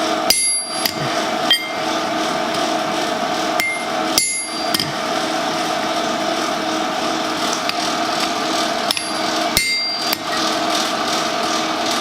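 Hammer striking a hot-cut chisel into hot steel on the anvil: a handful of sharp, ringing metallic strikes, spaced irregularly a second or more apart, driving texture lines deeper into a forged leaf. A steady rushing noise runs underneath.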